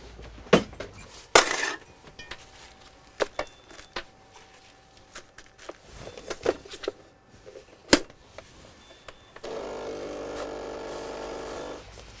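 Clicks and knocks of a coffee pod machine being handled, then its pump running with a steady buzzing hum for about two and a half seconds near the end.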